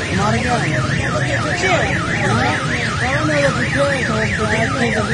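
Electronic siren warbling rapidly up and down, about four sweeps a second, with other shorter rising-and-falling tones beneath it.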